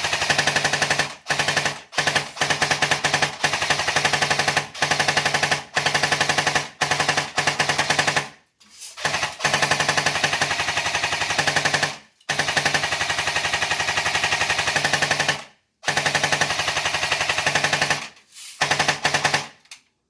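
Airsoft MG42 replica firing a string of full-auto bursts, a rapid rattle with a steady whine under it. Some bursts last under a second and the longest about three seconds, with short breaks between them.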